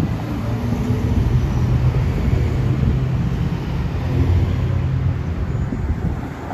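Road traffic driving past: a low, steady rumble of car and van engines and tyres.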